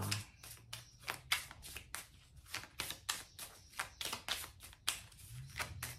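Tarot cards being shuffled and handled by hand: a run of soft, irregular card snaps and flicks, several a second.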